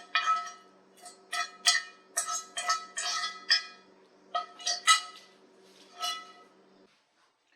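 A serving spoon clinking and scraping against a dish, about a dozen sharp ringing clinks at uneven intervals, with a faint steady hum underneath; it all stops about seven seconds in.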